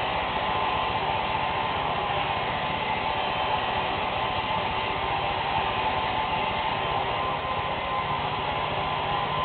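Handheld hair dryer blowing steadily, a rushing hiss with a faint steady whine.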